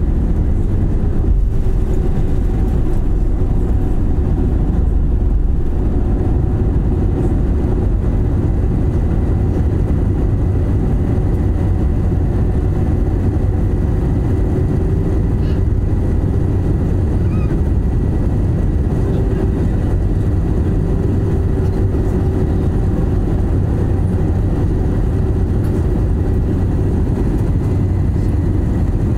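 Airliner jet engines at takeoff thrust, heard from inside the cabin: a loud, steady low rumble with a faint steady whine above it, through the end of the takeoff roll, liftoff and the initial climb.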